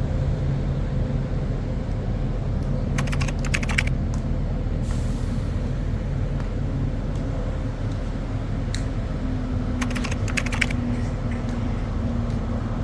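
Steady engine and road rumble heard inside a moving vehicle. There are two short bursts of rapid clicking or rattling, about three seconds in and again about ten seconds in.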